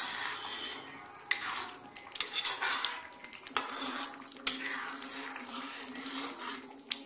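A metal spoon stirring thick spinach gravy in a kadai, with wet swishes and several sharp clinks and scrapes against the pan. A faint low steady hum comes in about halfway through.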